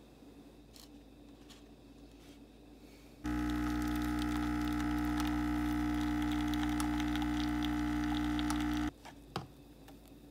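An illy iperEspresso capsule machine's pump starts about three seconds in with a loud, steady buzz as it brews a shot of espresso. It runs for about six seconds and cuts off suddenly, and a single click follows.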